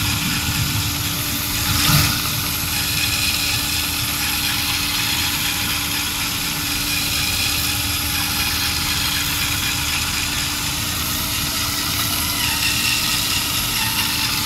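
LEGO Technic electric motors and gear train running steadily under load, a constant whirring hum with a brief louder surge about two seconds in, as the car's tyres pull a weighted trailer across wet, soapy glass.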